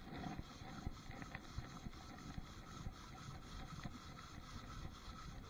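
Fishing boat's engine running steadily at a low level, with a few faint clicks.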